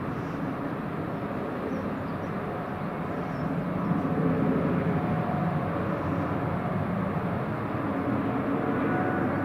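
Jet airliner engines rumbling at a distance, a steady broad roar with a faint whine in it that swells slightly about four seconds in.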